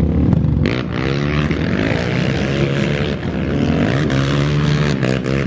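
Dirt bike engine running and being revved, its pitch rising and falling several times.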